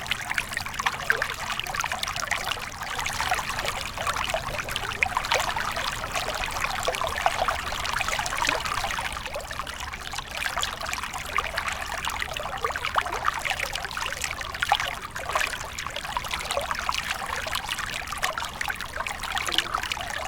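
River water trickling and splashing over stones, a steady babbling with fine splashes.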